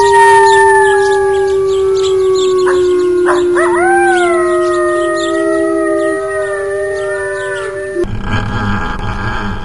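Several animals howling together in long, overlapping drawn-out notes that bend up and down. About eight seconds in, the howling cuts off abruptly and a rough, noisy rumble takes over.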